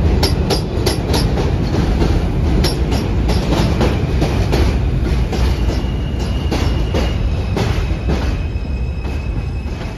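R160A subway train running into the station, its wheels clicking over the rail joints with the clicks coming further apart as it slows. A thin, high brake squeal comes in about halfway through.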